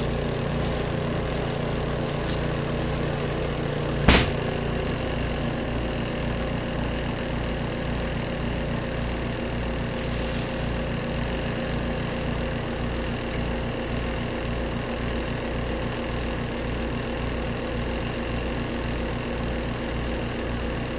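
Small twin-tub washing machine's motor running steadily, with a regular low throb about twice a second. A single sharp knock about four seconds in.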